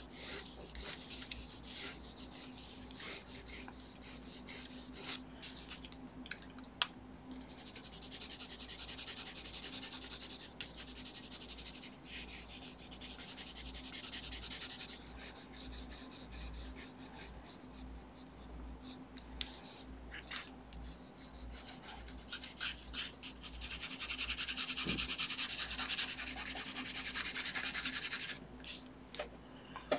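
Colored pencil scratching across the paper of a sketch cover in quick back-and-forth shading strokes. The scratching comes in two longer, denser spells, one starting about eight seconds in and one about twenty-four seconds in, with lighter strokes and small ticks between them.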